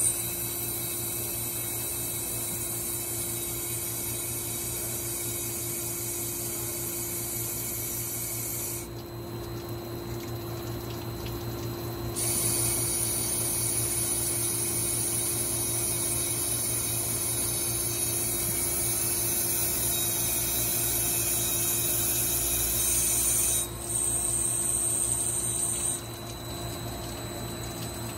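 Mitsubishi RC32-B CNC cylindrical grinder running with coolant splashing over the grinding wheel and workpiece: a steady hum and tone under a watery hiss. The high hiss drops out for a few seconds about a third of the way in, then comes back louder, and shifts again near the end.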